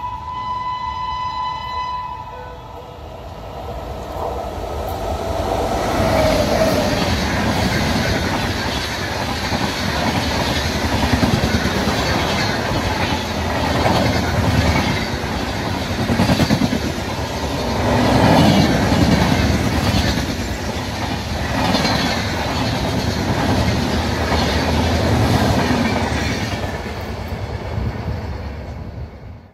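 Train horn sounding one steady blast that stops about two seconds in, then an express train passing at speed close by: a loud rush of wheels and coaches with clatter over the rail joints, fading away near the end.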